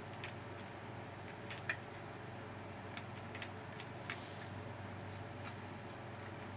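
Scattered light clicks and ticks of plastic twist-on wire nuts and stiff wires being handled and twisted together on a fluorescent fixture, over a steady low hum.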